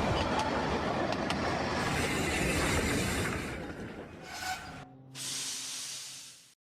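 Steam locomotive sound effects: a steady hiss of escaping steam, then after a brief break a second hissing clip with a low hum under it that cuts off suddenly near the end.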